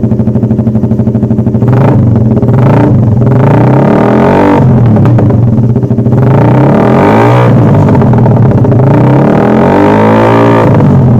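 Motorcycle with an aftermarket exhaust running at a steady low speed, then revved hard about two seconds in. It is revved again and again, the pitch climbing and falling with each rev.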